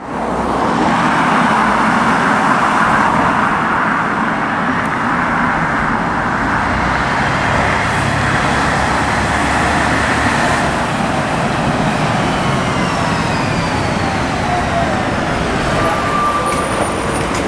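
Scania N113CRB single-decker bus with a Voith automatic gearbox, its rear 11-litre six-cylinder engine running as it drives along the road, a steady mix of engine and road noise. A few faint falling whines come through later on.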